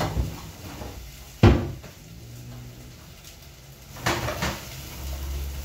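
A single sharp knock about a second and a half in, then a wooden spoon knocking and scraping in a saucepan of onion in bacon fat, about four seconds in.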